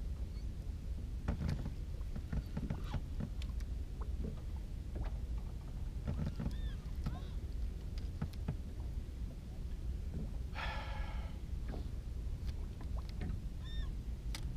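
Steady low rumble aboard a small fishing boat, with scattered light knocks and clicks of tackle being handled. Waterbirds call a few times with short arched calls, and one longer raspy call comes about ten seconds in.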